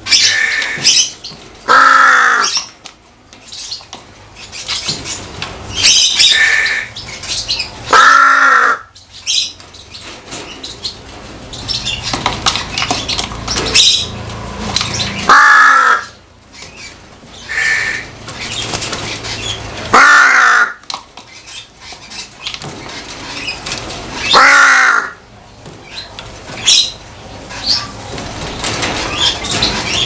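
Caged crow cawing five times, a few seconds apart.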